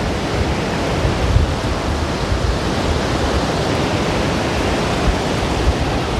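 Strong wind blowing across the microphone: a steady rushing hiss over a heavy, gusting low rumble.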